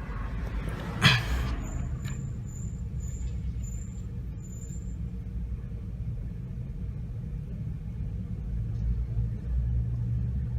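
A single sharp knock about a second in, over a steady low rumble, followed by about five faint, evenly spaced high chirps.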